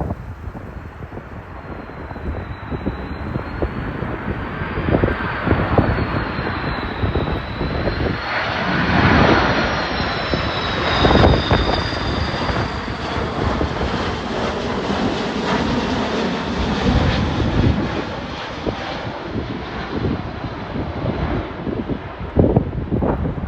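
Qantas Airbus A330-300 twin-jet passing on landing approach: the engine roar swells to its loudest about ten seconds in, with a high fan whine that slides down in pitch as the jet goes by, then eases off. Gusty wind buffets the microphone throughout.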